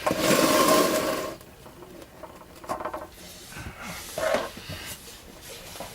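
Handling noise from work inside a furnace control panel: a loud scraping rustle for about the first second and a half, then a few faint clicks and knocks.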